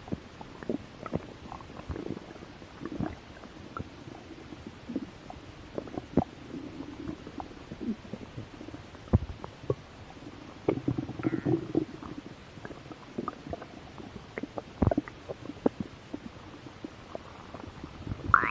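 A hungry human stomach growling and gurgling: irregular small pops and gurgles, with longer low rumbling growls about six seconds in and again about eleven seconds in.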